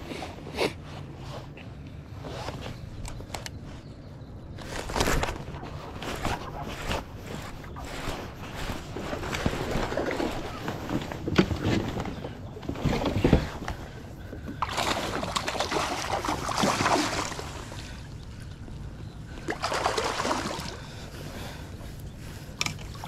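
Water sloshing and lapping around a kayak as it moves, swelling several times, with scattered short knocks and clicks from handling the rod and gear on the hull.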